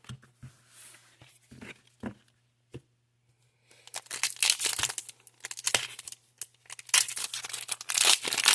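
A few faint clicks, then from about four seconds in the crackling, crinkling and tearing of a foil Pokémon TCG booster pack wrapper being ripped open.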